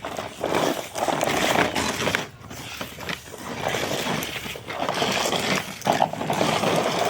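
Plastic wheels of a child's ride-on toy car rolling and rumbling over a hard floor, with a few short pauses.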